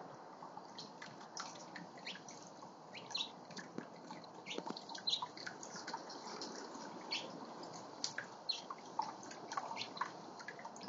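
Garden water fountain trickling and splashing steadily, with frequent short high-pitched chirps and splashes from small birds bathing in it.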